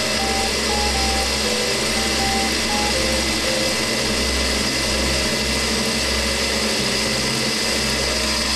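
Wabeco D6000 bench lathe running under electronic lead screw control while the tool cuts a taper on a metal bar: a steady machine noise with a constant hiss.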